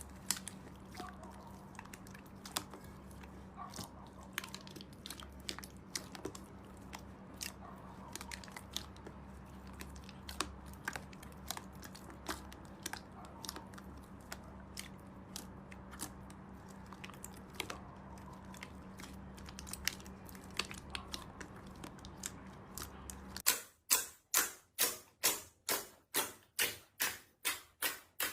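Slime being squeezed and worked by hand, giving irregular small crackling clicks over a steady low hum. Near the end the hum cuts off and a run of sharper, louder pops follows, about three a second.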